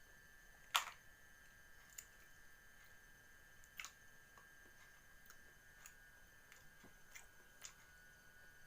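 Faint, scattered clicks and small crunches of a person eating cooked catfish, the sharpest about a second in, over a steady faint high-pitched hum.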